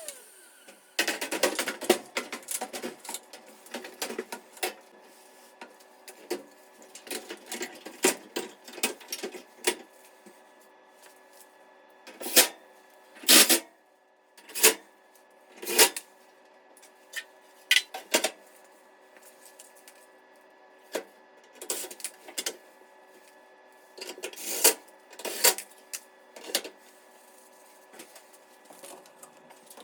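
Irregular clicks, knocks and clatter of hard objects being handled, with a faint steady hum underneath.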